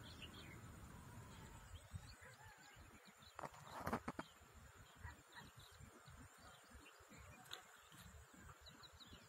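Quiet lakeshore ambience: faint bird chirps and a low wind rumble on the microphone. About four seconds in comes a brief swishing rustle as a fishing line is cast.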